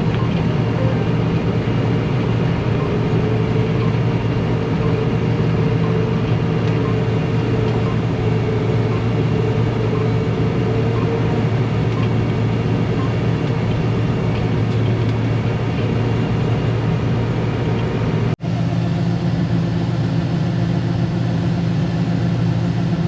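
Combine harvester running steadily: a deep, continuous engine and machinery drone with a whining tone above it. About eighteen seconds in, the sound drops out for an instant and comes back slightly changed.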